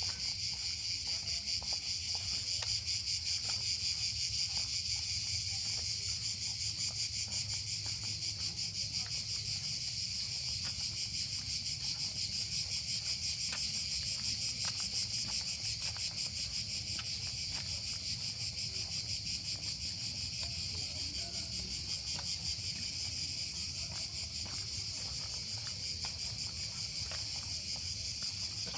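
A steady chorus of cicadas buzzing in the trees: a dense, high, rapidly pulsing shrill that holds without a break.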